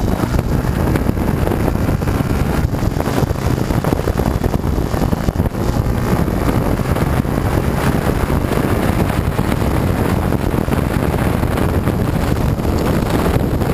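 Yamaha YZF-R125's 125 cc single-cylinder four-stroke engine running steadily as the bike rides along, mixed with heavy wind rush on the onboard camera's microphone.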